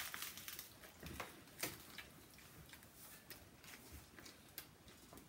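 Faint eating sounds: a few scattered soft clicks and crunches of chewing, sparser toward the end.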